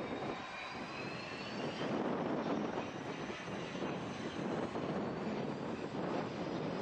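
Cessna 551 Citation II/SP business jet's twin Pratt & Whitney Canada JT15D turbofans running as the jet rolls slowly along the runway: a steady rumbling rush with a faint high whine that slowly rises in pitch.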